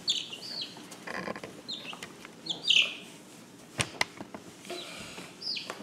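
Young chickens peeping: short, high chirps that fall in pitch, a few at a time, with two sharp clicks about two thirds of the way through.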